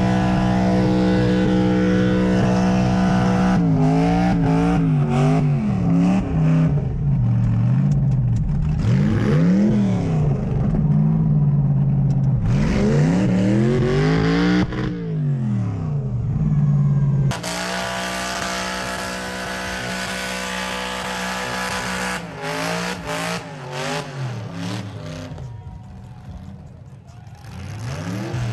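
LS-swapped burnout truck's V8 running at high revs during a burnout, first held steady, then revved up and down over and over. About 17 seconds in the sound changes abruptly: the engine holds high revs again, then rises and falls and fades somewhat near the end.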